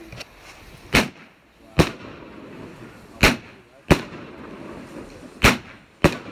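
Aerial fireworks firing shot after shot that burst into gold stars: six sharp bangs at uneven gaps of about half a second to a second and a half.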